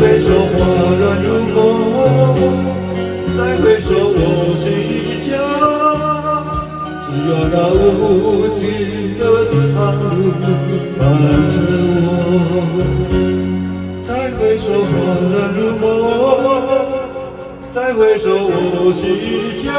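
A slow Mandarin pop ballad: singing over a backing track, the melody line wavering with vibrato above a steady accompaniment.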